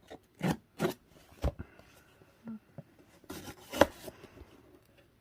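Handling of a cardboard package: scattered knocks and rubbing, with the sharpest knock nearly four seconds in.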